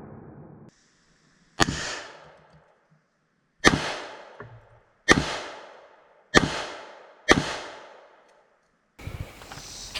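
Five gunshots from a Taurus Raging Hunter .500 Magnum revolver, about a second to two apart, each with a sharp crack and a rolling echo that cuts off suddenly.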